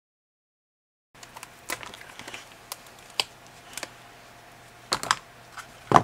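A silicone heart mold being worked off a cured resin casting by hand: scattered light clicks and taps, a few sharper ones, over a faint low hum. The first second is silent.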